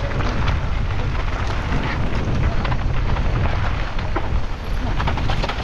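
Wind rumbling on the camera microphone of a mountain bike racing downhill, with the tyres running over rough ground and many sharp clicks and knocks from the bike.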